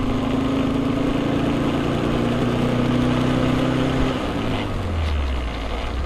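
1982 Alfa Romeo Spider's twin-cam inline-four engine running under way, heard from inside the cabin with road noise. The note holds steady, then changes about four seconds in and settles lower.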